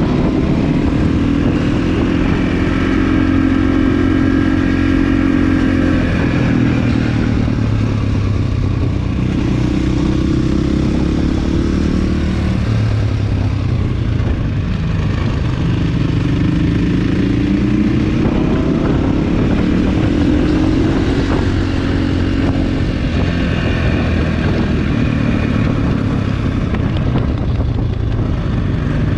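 Motorcycle engine heard from on board, its pitch rising and falling again and again as the rider accelerates out of and rolls off into the tight corners.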